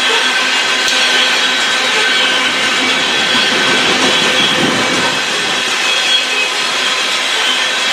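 Loaded coal hopper cars of a freight train rolling past: a steady rushing noise of steel wheels on rail, with thin, steady high-pitched tones running through it.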